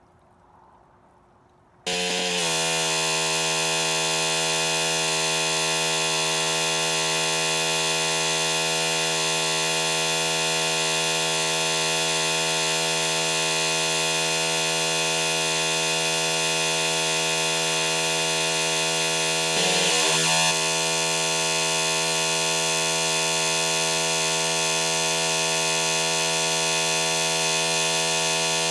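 Pressure washer starting suddenly about two seconds in, then running steadily as a loud, even hum with a hiss of spray. Its pitch dips briefly about two-thirds of the way through.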